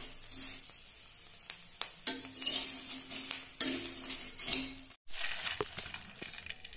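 Metal spatula stirring and scraping pampudi through hot oil in a kadai, over the steady sizzle of deep-frying, in repeated strokes. About five seconds in the sound cuts off suddenly, followed by fainter rustling and small clicks as the crisp fried pieces slide from a steel bowl onto a plate.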